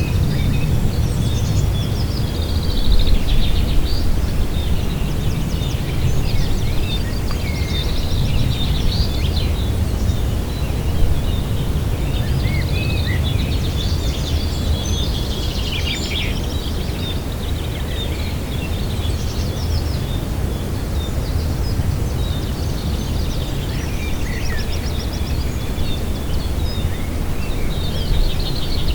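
Small songbirds chirping and trilling on and off, several calls overlapping at times, over a steady low rumble of outdoor background noise.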